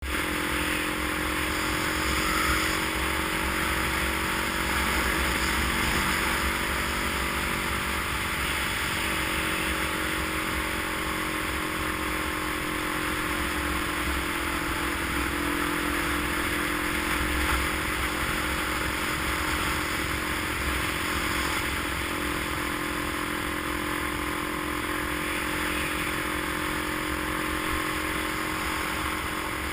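A vehicle engine running steadily under way, its pitch drifting slightly, over an even haze of road and wind noise.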